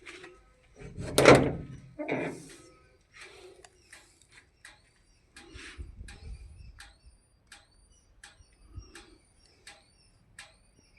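A door, most likely the pump house door, scraping open about a second in with a second, shorter scrape just after. It is followed by a run of sharp, evenly spaced ticks, about two a second.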